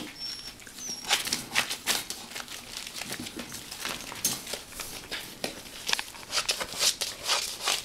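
Plastic tarp crinkling and rustling under puppies scrambling about on it, in many short irregular crackles.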